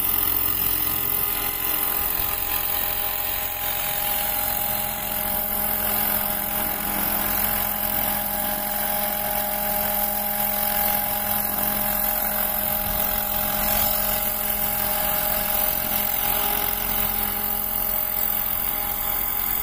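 Battery-electric 800-size scale RC helicopter hovering low: a steady whine of the electric motor and spinning rotors over a constant rush of rotor noise, holding an even pitch throughout.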